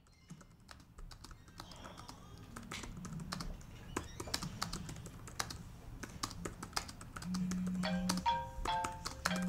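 Typing on a laptop keyboard: quick irregular key clicks fading in from silence. A little before the end a mobile phone starts buzzing in short pulses and playing a ringtone melody.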